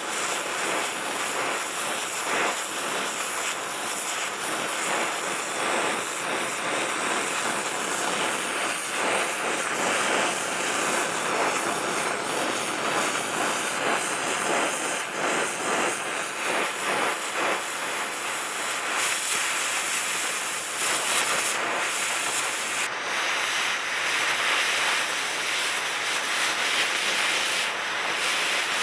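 Oxy-acetylene cutting torch running with a steady hiss as it burns through a seized ball joint nut and cotter pin on a truck's front axle steering knuckle.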